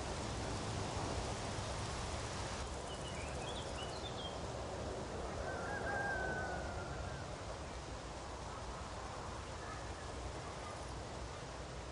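Meadow nature ambience: a steady rustling, breeze-like hiss, with a few faint bird chirps about three to four seconds in and one longer bird call around six seconds.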